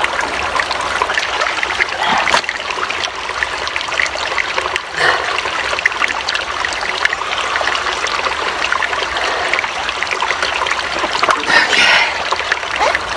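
Small stream running and trickling steadily, with a few brief louder splashy moments.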